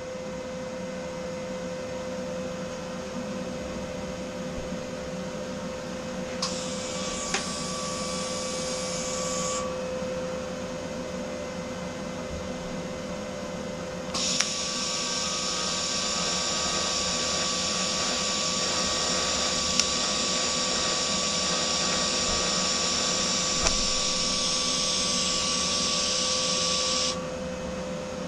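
TIG welding arc on stainless steel: a hiss with a steady high whine, in two runs, a short tack about six seconds in and a longer weld of about thirteen seconds from about halfway. A steady low hum runs underneath throughout.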